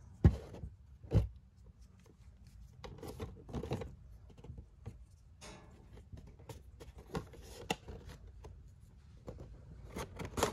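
Cardboard action-figure box with a clear plastic window being handled and turned over in the hands: scattered taps and rustles of the packaging, with two sharp knocks in the first second or so.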